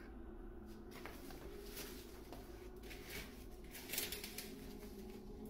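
Vertical blind slats rustling and knocking softly as they are brushed aside, a handful of separate brushes with the loudest about four seconds in, over a faint steady hum.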